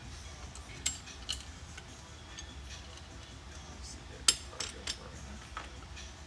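Metal hand tools and small valvetrain parts clicking and clinking as they are handled on a cylinder head during a valve spring swap. There are a handful of separate sharp ticks, and the loudest comes about four seconds in.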